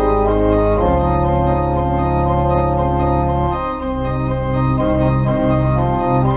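Organ postlude: sustained chords over a moving bass line, the harmony changing about a second in and again a little past halfway.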